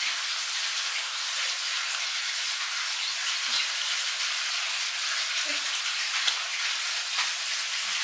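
Steady watery hiss of running or falling water, with a few faint knocks and clicks.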